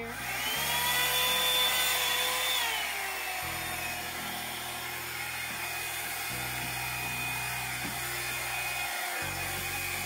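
Revlon One-Step hair dryer brush running, a steady rush of air with a motor whine. About three seconds in the whine drops in pitch and the dryer gets quieter as it is switched down from high to low heat.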